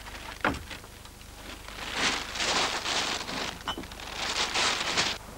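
Refuse sacks being handled: a single knock, then two stretches of rustling and crackling about a second long each.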